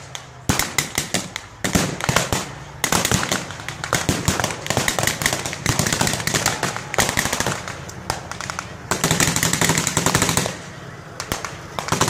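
Rapid blank gunfire, with strings of sharp cracks and dense machine-gun volleys, over the steady engine of an M4 Sherman tank driving past.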